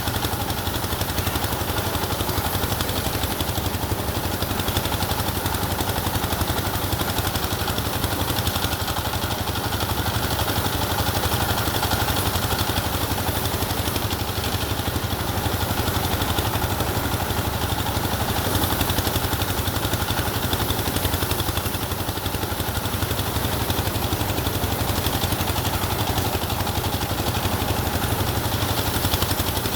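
An engine running steadily at an even speed, its low rapid firing pulse unchanged throughout.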